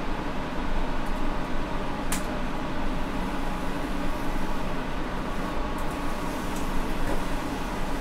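Spiral-airflow hot air rework station blowing steadily through its nozzle onto a phone logic board as a chip is soldered on: an even rushing of air over a low hum. A few faint ticks come about two seconds in and again near six seconds.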